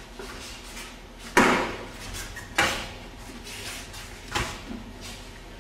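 Three sharp snaps from a martial artist's techniques as he performs the taekwondo pattern Won Hyo. The first, about a second in, is the loudest; the others come about a second and three seconds later, each fading quickly.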